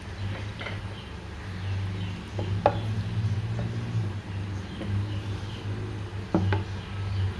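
A serving spoon scraping and knocking against a cooking pot as curry is dished out, with a few sharp clinks, the loudest about a third of the way in and near the end, over a steady low hum.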